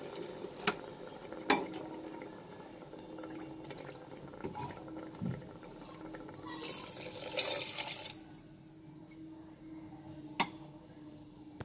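Water just added to hot fried moong dal and green peas in a pressure cooker, bubbling and settling, the noise fading over the first few seconds. A few sharp taps of the metal spatula against the pot.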